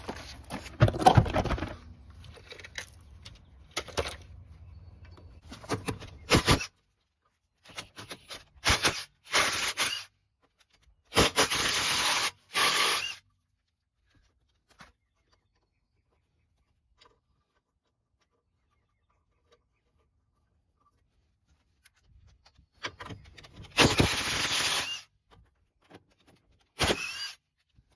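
Cordless impact wrench hammering in several short bursts of a second or two, loosening a car wheel's lug nuts, the last burst ending in a rising whine. Clunks and scrapes of handling come in the first few seconds.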